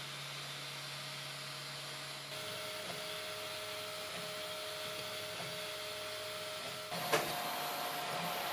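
3D printer with an E3D hotend printing: the steady whir of the hotend cooling fan under a few steady motor tones. The sound changes abruptly about two seconds in and again near the end, with a short click just after the second change.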